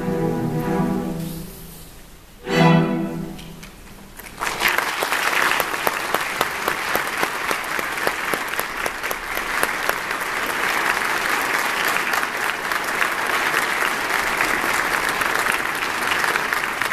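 String orchestra of young players, violins and cellos, ending a piece. A held chord fades, then a short, loud final chord sounds about two and a half seconds in, and from about four seconds in the audience applauds steadily.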